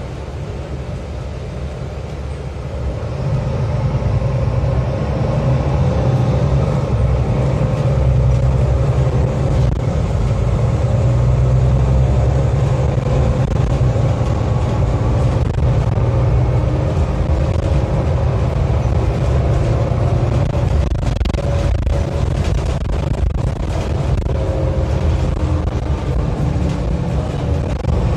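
City bus running, heard from inside the passenger cabin: a steady low rumble of engine and road noise that grows louder about three seconds in, with a faint humming tone above it.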